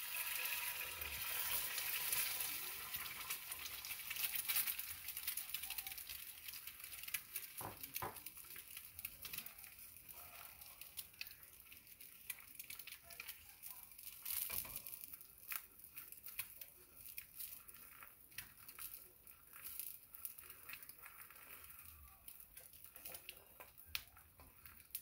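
An egg frying in avocado oil and butter in a skillet: a sizzle thick with crackling and popping. It is loudest in the first few seconds after the egg hits the pan, then settles to a quieter, sparser crackle.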